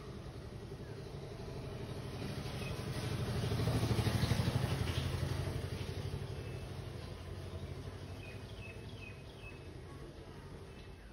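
A motor vehicle's engine hum that swells to its loudest about four seconds in and then fades, as of a vehicle passing by. A few short high chirps come in the second half.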